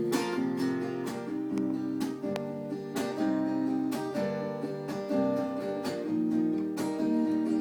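Acoustic guitar strummed and picked in an instrumental passage of a folk-pop song, with no voice.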